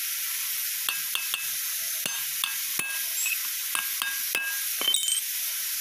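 Hammer striking a steel punch held against the nut on a tractor's front-axle pinion shaft: about ten sharp metallic taps at uneven intervals, each with a brief ring, over a steady hiss.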